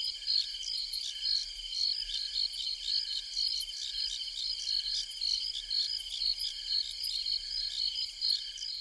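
Insects chirping in a steady chorus of fast pulsing trills, with a softer, lower note repeating about one and a half times a second underneath.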